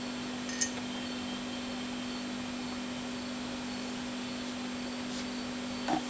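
A steady low electrical hum, with a faint click about half a second in.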